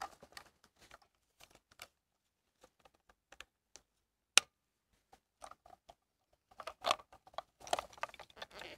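Light plastic clicks, taps and rattles from handling a Honda Civic fuel pump and filter module being reassembled, with one sharp click about four seconds in and a busier patch of handling noise near the end.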